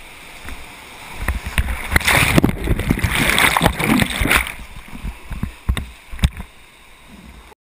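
Whitewater rapids rushing and splashing around a kayak, broken by sharp knocks. The splashing swells loud from about two seconds in to about four and a half seconds as the boat plunges through the drop, then settles back to a quieter rush. The sound cuts off suddenly near the end.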